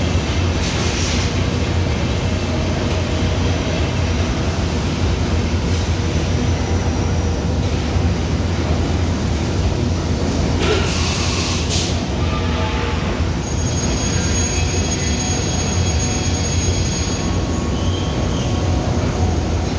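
Doosan CNC mill running its automatic toolsetter calibration cycle: a steady low machine hum and hiss throughout, with a brief sharp hiss about ten and a half seconds in.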